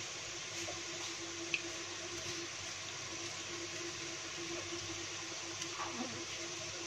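Faint wet squishing and scraping of tomato being grated on a small plastic hand grater, with a few soft clicks, over a steady hiss and low hum.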